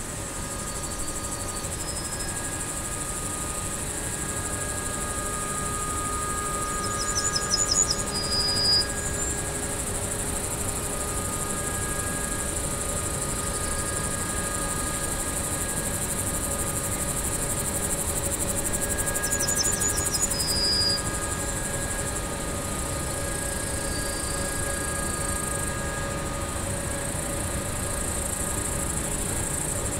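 Outdoor ambience on the grounds of a heat and power plant: a steady high-pitched hiss over a low drone, with faint steady tones that come and go. Two short chirps come about eight and twenty seconds in.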